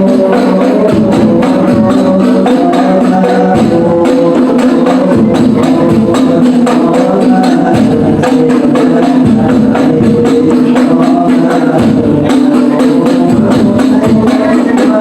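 Hadroh ensemble playing: rebana frame drums struck in a fast, dense rhythm over a deep bass drum beating at a regular pulse, with a sustained pitched melody above.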